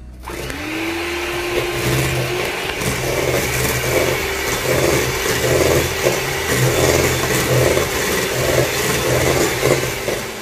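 Electric hand mixer switching on, its motor rising briefly in pitch and then running steadily as the beaters whisk beaten egg into creamed butter and sugar in a stainless steel bowl. The sound swells regularly about every three-quarters of a second as the beaters are worked through the batter.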